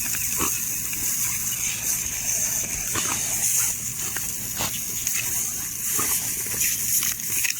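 Lawn sprinkler spraying water: a steady high hiss, with a few faint, irregular ticks or splashes.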